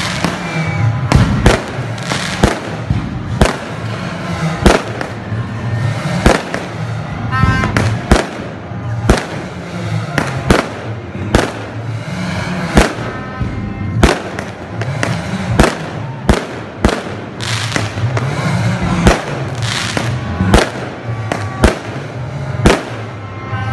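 Aerial fireworks bursting overhead one after another, sharp bangs roughly one or two a second at uneven spacing, with a continuous low rumble between them.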